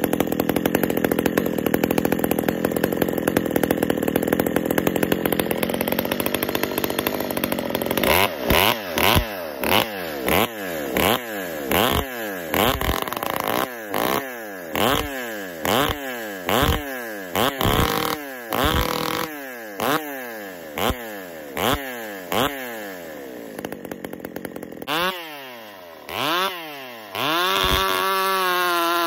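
Gas chainsaw cutting a log, its chain filed sharper on one side, which the sawyer expects to make the cut walk off to that side. It runs steadily at full throttle for the first several seconds, then revs up and down in quick repeated pulses, about one and a half a second. Near the end it climbs back to a steady high-revving note as it cuts on.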